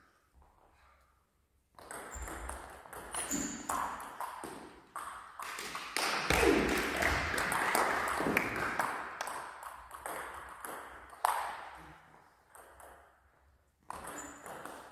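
Celluloid-type table tennis ball clicking off rubber-faced bats and bouncing on the table in quick exchanges, starting a little under two seconds in.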